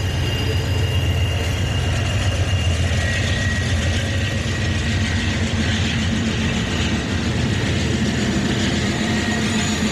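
An Amtrak passenger train rolls past: coaches first, then a GE Genesis P42DC diesel locomotive, with a steady low engine rumble. A thin high wheel squeal sounds over the first few seconds, and the rushing noise swells as the locomotive goes by.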